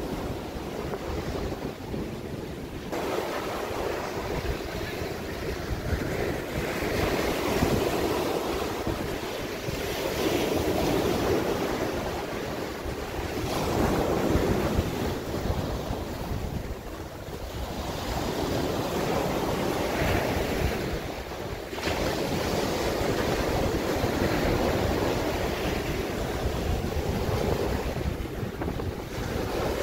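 Small ocean waves breaking and washing up over sand and rocks at the shoreline, the surf swelling and fading every few seconds. Wind buffets the microphone underneath.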